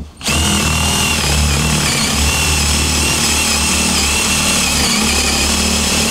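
A KIMO 20V cordless drill driver in drill mode, without hammer action, runs a 40 mm Forstner bit boring into wood. Its motor gives a steady whine under load from about a quarter second in.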